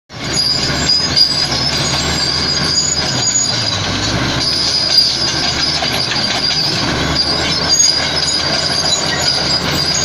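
Komatsu D85E-SS crawler bulldozer working: its diesel engine runs under load while the steel tracks give a steady high-pitched squeal as the blade pushes broken rock.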